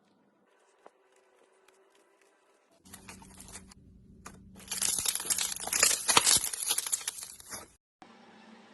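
Dry crackling and crunching, faint at first and loudest over the last few seconds, cut off abruptly shortly before the end. A fainter, steadier sound follows.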